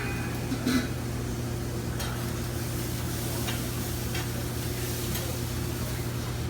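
Chicken sizzling on a grill under a steady low hum, with a few light clicks and a small knock near the start.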